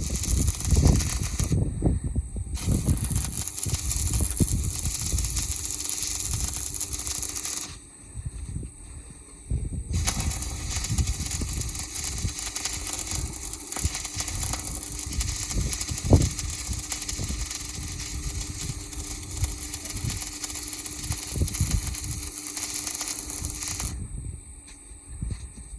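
Electric arc welding: the arc crackles and sizzles steadily with irregular pops. It breaks off three times, briefly about two seconds in, for a couple of seconds about a third of the way through, and again near the end.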